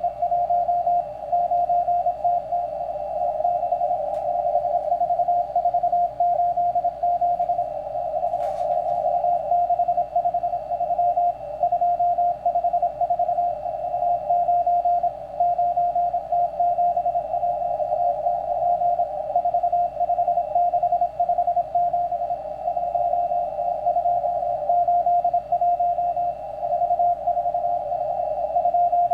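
Morse code from the M12 Russian number station, received on shortwave in CW mode: a single tone near 700 Hz keyed on and off in quick dots and dashes over narrow-filtered static hiss.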